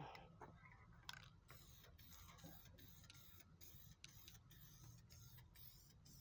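Aerosol spray-paint can hissing faintly in short passes, with brief breaks about twice a second.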